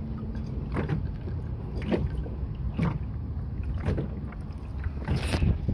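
Wind rumbling on the microphone, with small waves slapping against a fiberglass sailboat hull at the waterline about once a second.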